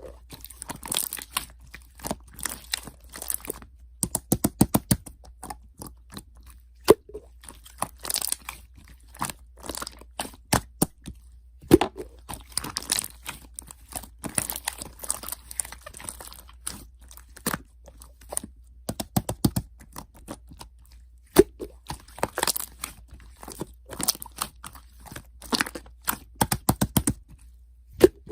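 Close-up crunching and crinkling made up of many sharp irregular clicks, with a few short rapid runs of taps.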